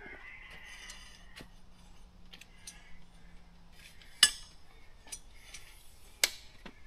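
Metal frame of a pop-up canopy being pulled open: light clinking and rattling of the scissor-truss joints, with two sharp clanks about four and six seconds in. The frame is stiff and slow to extend.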